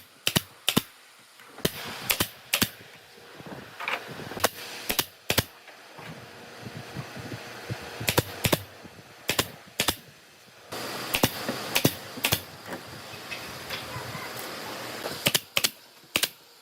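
Sharp, irregular knocks of a hand tool striking wood, one to three a second and sometimes in quick pairs.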